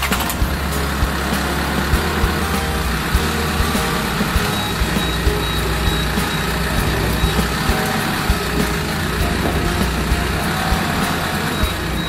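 Isuzu light truck's diesel engine idling steadily, a low rumble with a light ticking clatter.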